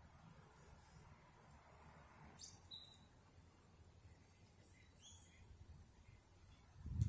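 Faint outdoor ambience: a steady, high-pitched insect trill, with two brief bird chirps, about two and a half seconds in and again about five seconds in.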